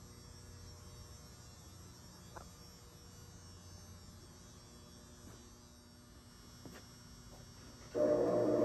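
Faint steady hum with a few light clicks, then about eight seconds in the Dayton 20-inch 2 HP three-phase disc sander switches on and runs, suddenly much louder.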